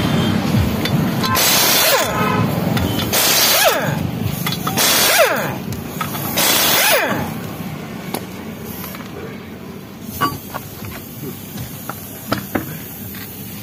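Cordless impact wrench hammering off wheel nuts in four short bursts about a second and a half apart, each ending in a falling whine as the motor spins down. Scattered metallic clicks and knocks follow as the nuts and wheel come off, with music underneath.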